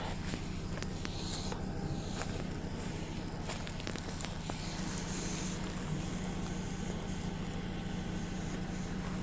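A steady low engine hum, like a vehicle idling, with scattered faint clicks and crackles over it.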